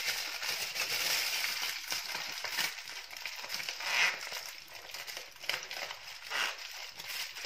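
Aluminium foil crinkling as hands fold and crimp it into a packet around food, in irregular crackles that are loudest about four seconds in.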